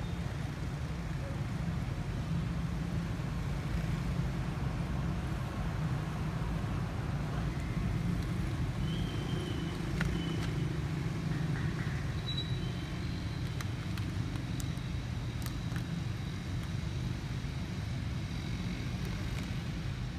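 Steady low outdoor rumble throughout, like distant traffic or wind on the microphone. A few faint, short high-pitched calls come through around the middle and again later.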